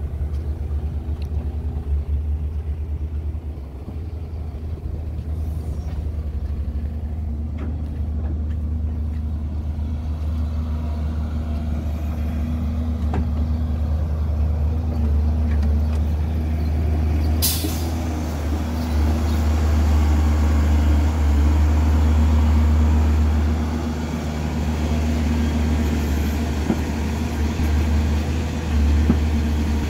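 Heavy diesel engines of a wheeled excavator and dump trucks running steadily, a deep low rumble. A short hiss of air, like an air brake, sounds about 17 seconds in.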